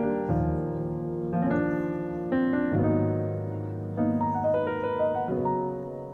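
Slow piano music, with new notes or chords about once a second.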